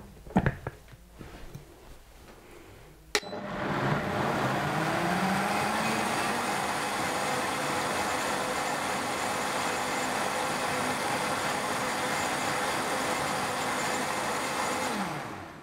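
Froothie Optimum 9200A high-speed blender blending tomato soup: a few light knocks as the lid plug is pressed in, a sharp click about three seconds in, then the motor runs up to speed and runs steadily, winding down with a falling pitch just before the end.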